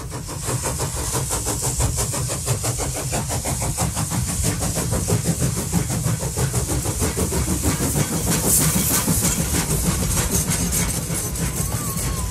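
Vehicle running noise with a fast, even beat over a low rumble and a steady hiss.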